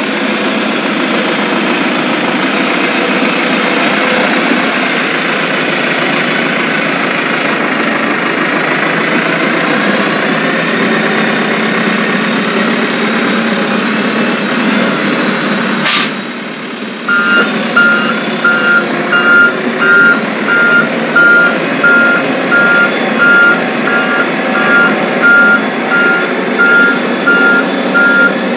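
Soil compaction roller working over loose crushed rock: its engine and drum run steadily, then, after a sharp click and a brief drop about halfway through, its reversing alarm beeps about twice a second over the engine as the machine backs up.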